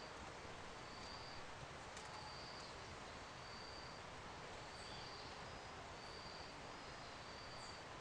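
Faint outdoor ambience: a high, even-pitched call repeats about once a second, with a few brief high chirps from small birds, over a steady background hiss.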